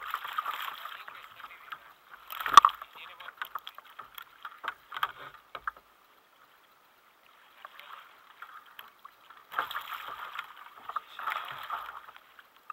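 A large meagre (corvina) thrashing and splashing at the surface beside a kayak as it is brought alongside, with one sharp knock about two and a half seconds in. Splashing dies down about halfway through and comes back in bursts near the end.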